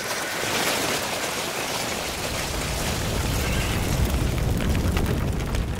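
Radio-drama sound effect of a raid: a dense, rumbling din with a hiss in the first second or so, the deep rumble building and growing louder.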